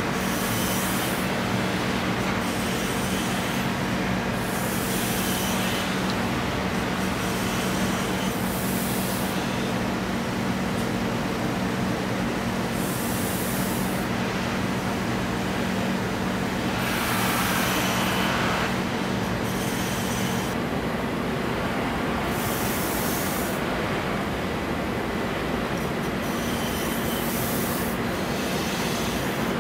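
Motor-driven grinding and buffing wheels running with a steady hum, and a hiss every few seconds as a knife handle is pressed against the spinning wheel.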